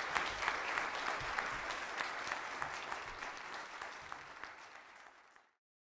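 Audience applauding, a dense patter of many hands clapping that fades out and cuts off to silence near the end.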